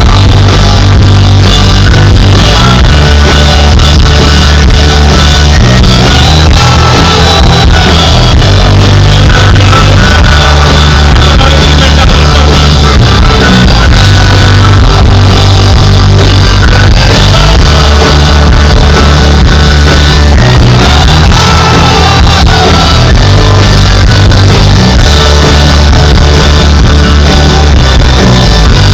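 Live rock band playing, with heavy bass and guitar and a singing voice, recorded loud and distorted.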